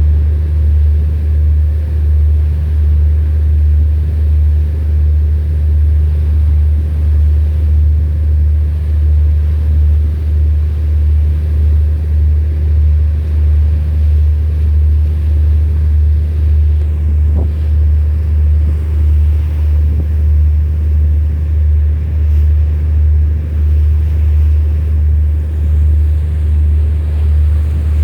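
Deep, steady ship's engine rumble with a regular throb.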